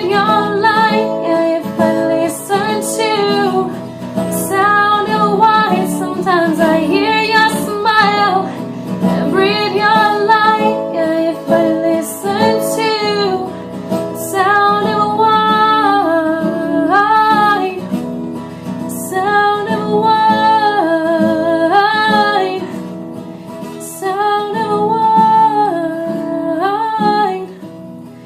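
A woman singing held, sustained notes over acoustic guitar.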